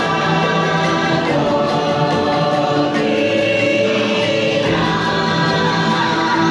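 Choir singing long held notes in harmony, the ride's background music playing through its speakers; the chord changes about two thirds of the way through.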